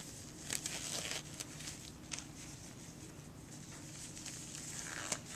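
Sterile nitrile gloves being pulled on by hand: faint scattered rustles and small snapping clicks of the glove material, with a sharper click near the end.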